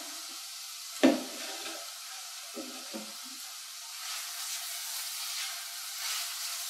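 Chopped onion and garlic sizzling in olive oil in a saucepan, a steady hiss, with a sharp knock about a second in. In the second half a spatula stirs through them, adding short scraping swishes.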